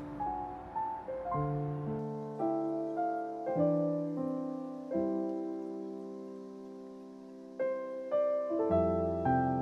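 Soft background piano music: slow single notes and chords, with a long held chord in the middle and low bass notes coming in near the end.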